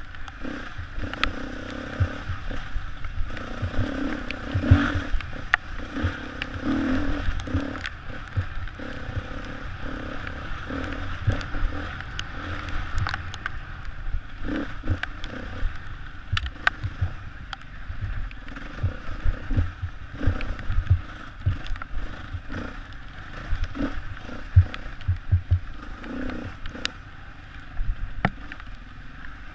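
Enduro motorcycle engine running as the bike is ridden over a rough forest trail, with frequent sharp knocks and clatter from the bike jolting over roots and ruts, heard from a helmet-mounted camera.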